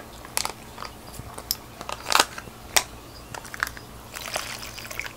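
Plastic fish shipping bag crinkling and crackling as it is handled and opened, in irregular sharp crackles.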